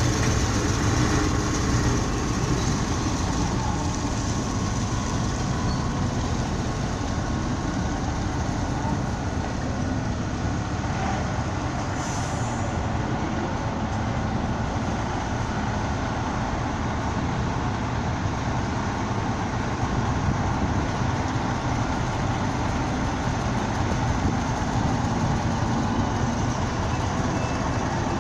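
Heavy diesel machinery running steadily, with a brief hiss about twelve seconds in. A reversing alarm starts beeping just before the end.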